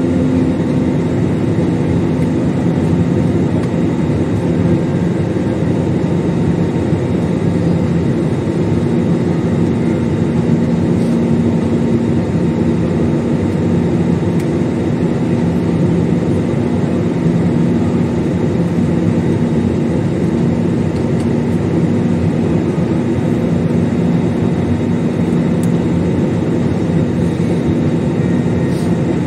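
Steady cabin noise of an Airbus A320 airliner in flight, heard from a window seat: engine and rushing-air noise, with a faint low steady hum underneath.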